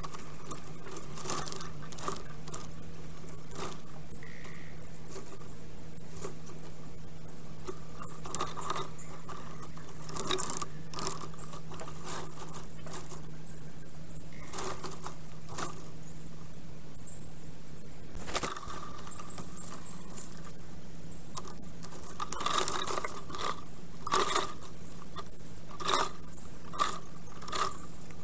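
Time-lapsed, sped-up sound from a microphone at a black stork's stick nest: quick irregular clicks and crackles of twigs, coming thicker and louder in the last few seconds, over a steady low hum and high-pitched chatter.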